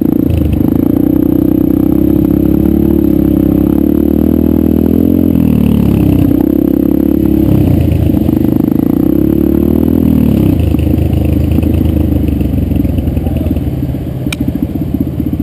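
Yamaha 125 dirt bike's single-cylinder engine running along a dirt trail, close up. Its pitch falls and comes back up twice, about five and ten seconds in.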